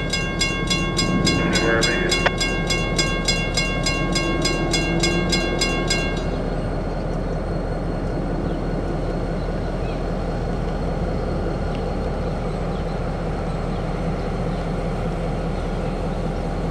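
WRRS mechanical railroad crossing bell ringing at about three strokes a second while the crossing gates lower, stopping about six seconds in as the gates come down. A steady low engine rumble continues underneath.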